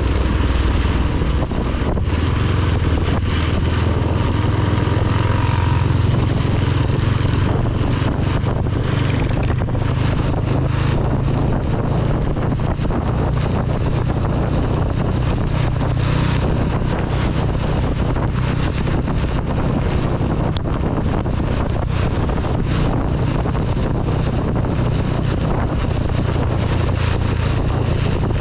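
A CB 250 motorcycle riding at a steady pace in heavy rain: a low, even engine drone under a dense hiss of rain and spray, with wind buffeting the microphone.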